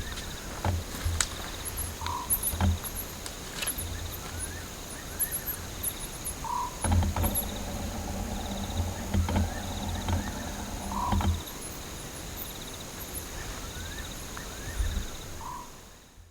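Night bush chorus: insects trilling steadily with a pulsing chirp, frogs calling, and a short call repeated every few seconds, with scattered low knocks. A low steady hum joins for a few seconds in the middle, and everything fades out at the end.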